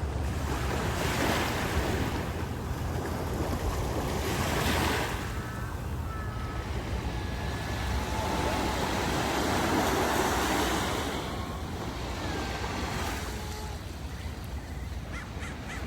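Ocean surf breaking and washing up the beach in repeated surges, the biggest about two-thirds of the way through, with wind rumbling on the microphone.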